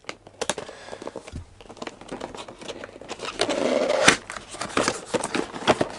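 Tape seals on a cardboard toy box being broken and the box pulled open by hand: a run of scratches, crinkles and small clicks of card and tape. The loudest is a longer rustling scrape from about three and a half seconds in, ending in a sharp click.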